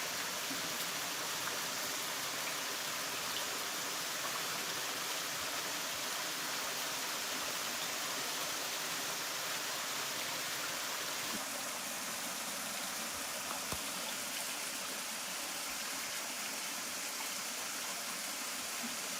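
Waterfall rushing, a steady wash of falling water, its tone thinning slightly a little past halfway.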